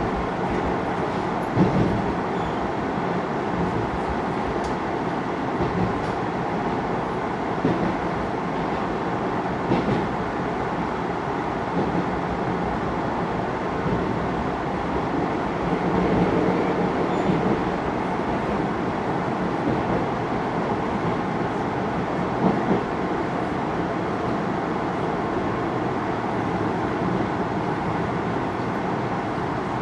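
Cabin noise of a JR 733 series electric train running: a steady rumble of wheels on the rails and the car body, with a few small knocks.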